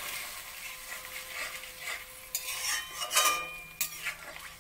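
Masala curry sizzling in a hot metal kadai while a metal spatula stirs it. The spatula scrapes sharply against the pan a few times past the middle, loudest about three seconds in.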